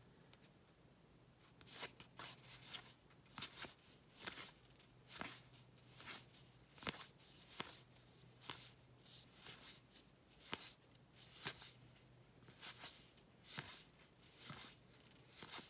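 A stack of 2018 Topps Heritage baseball cards being flipped through by hand, one card at a time slid across the stack. Each makes a short, faint papery swish, about one a second, starting a moment in.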